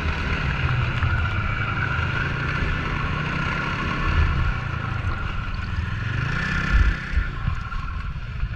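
Snowmobile engine running steadily under way, with wind on the microphone; the engine note rises briefly about six seconds in, then eases off.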